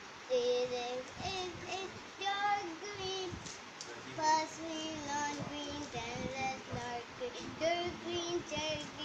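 A young girl singing a song in held, pitched phrases.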